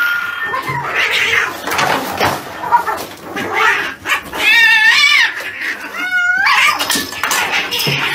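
Agitated cats yowling and caterwauling, with two long, wavering cries about halfway through. Short knocks and scuffling come between the cries.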